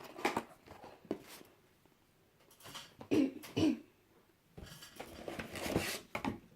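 A person coughing twice in quick succession, amid scattered short clicks and rustles of packaging being handled.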